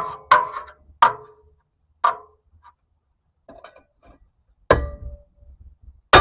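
Sharp metallic clanks, five spread through the stretch, each with a short ring: a steel tool striking and prying against a truck driveshaft to work it loose.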